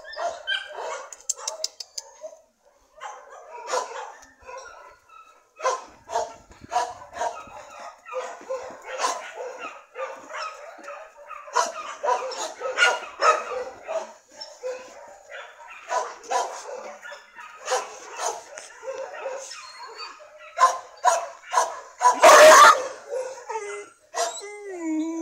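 A dog barking and yipping repeatedly in short, sharp bursts, with a louder burst near the end.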